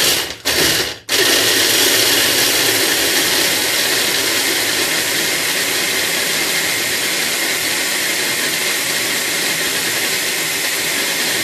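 Small electric blender pulsed twice briefly, then running steadily, chopping almonds, pine nuts, basil and Parmesan into a pesto nut base.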